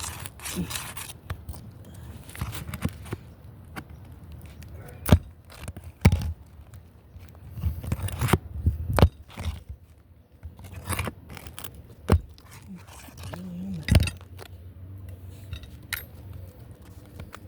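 Roof shingles being worked by hand during a crease repair: irregular scraping and crackling with a few sharp knocks.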